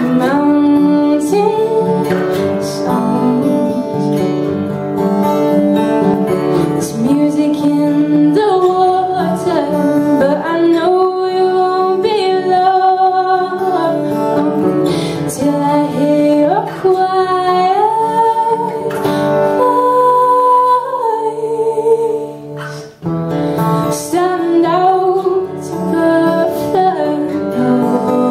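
A woman singing a folk song, accompanied by two acoustic guitars. The sound drops briefly about three-quarters of the way through, then picks up again.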